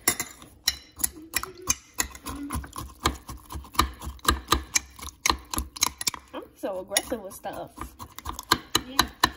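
Metal spoon jabbing and scraping inside a ceramic mug, mashing Oreo cookies into milk: quick clinks and knocks, several a second, coming faster near the end.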